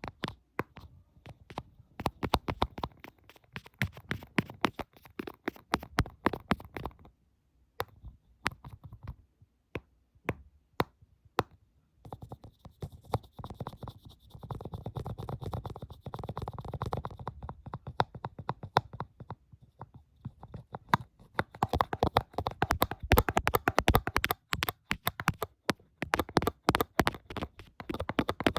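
ASMR fingertip and fingernail tapping and scratching: runs of quick, sharp taps, with a stretch of steady scratching or rubbing in the middle and dense, fast tapping and scratching again near the end.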